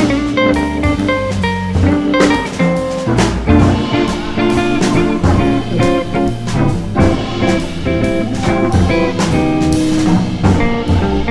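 Live jazz organ trio playing: Hammond organ, archtop electric guitar and drum kit, with cymbal and drum strokes keeping a steady beat under the organ and guitar lines.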